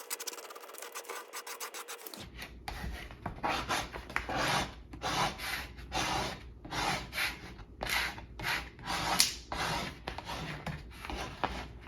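Squeegee rubbing over a vinyl window decal on glass in short, repeated scraping strokes, a little under two a second, starting about two seconds in, pressing the decal down onto the window.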